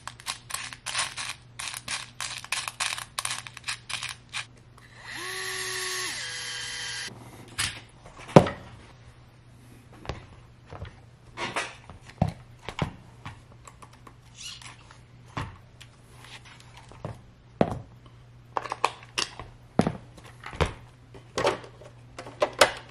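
Workbench assembly sounds: small metal screws clicking in a plastic parts tray for the first few seconds, then a cordless power screwdriver whirring for about two seconds with its pitch stepping. After that come scattered sharp clicks and taps of RC truck parts being handled and fitted.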